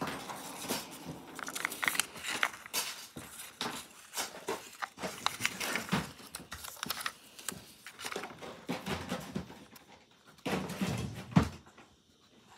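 Paper slips and card rustling and crinkling as hands shuffle through them in a plastic tub, with a louder bump near the end.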